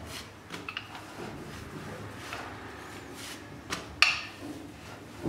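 A rolling pin rolling out stiff dough on a board: a low rumble with a few knocks, the sharpest about four seconds in.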